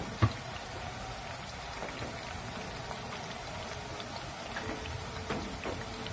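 Banana slices deep-frying in hot oil in a wok: a steady sizzle with scattered small crackles, and one sharp, loud pop just after the start.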